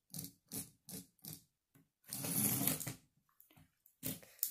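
Lego Technic toy vehicle pushed along a wooden tabletop: several quick back-and-forth strokes, then a longer run of about a second, its wheels rolling and plastic parts rattling on the wood.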